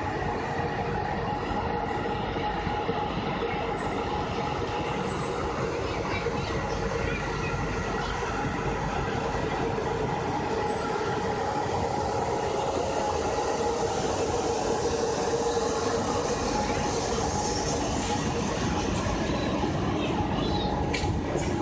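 Two CFR Class 41 (EA1) electric locomotives pulling a passenger train away at walking pace. A steady electric hum with several held tones grows slightly louder as they pass, with a few sharp clicks near the end.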